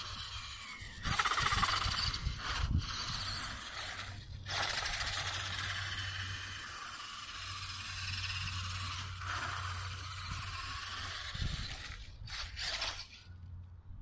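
Electric 1:14 RC truggy driving on tarmac: the high-pitched whine of its motor and gears with tyre noise, cutting out briefly a few times as the throttle is let off and dying away near the end.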